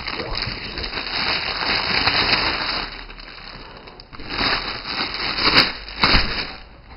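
Plastic bag crinkling and rustling as a BB rifle is pulled out of it, with a few sharp knocks near the end.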